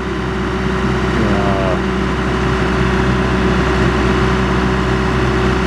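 John Deere 310G backhoe's diesel engine running steadily, its level rising gently over the first few seconds.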